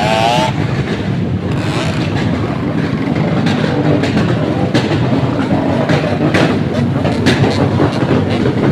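Vehicle exhaust popping and crackling in a rapid, uneven string, with a few louder sharp bangs standing out.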